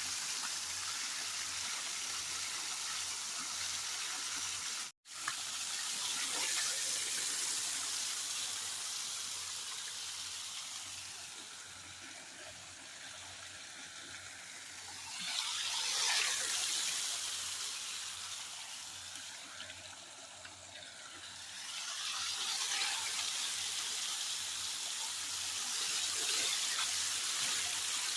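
Water running and splashing steadily, swelling louder twice in the second half; the sound drops out for an instant about five seconds in.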